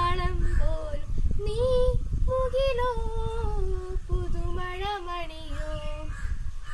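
A girl singing a song solo and unaccompanied, holding long notes that rise and fall, with a low rumble underneath.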